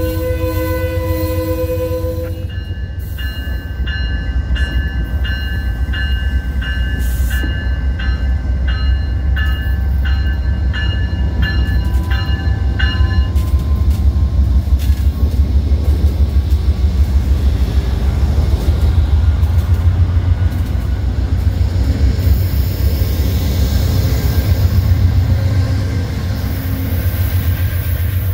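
A train's air horn sounding a chord that cuts off about two seconds in, followed by a bell clanging about twice a second until about halfway. Under it a train rumbles past steadily, growing louder in the second half.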